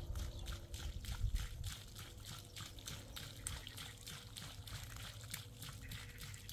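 Liquid trickling and splashing in a quick, uneven run of short spurts, about three or four a second.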